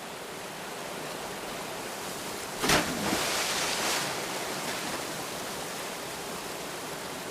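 Sound effects for an animation: a steady hiss, broken a little under three seconds in by a sudden hit with a short falling tone, followed by a rushing whoosh that fades over about a second.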